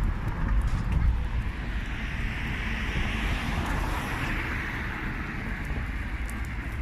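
A vehicle passing on a road, its tyre and engine noise swelling towards the middle and fading again, over a steady low rumble.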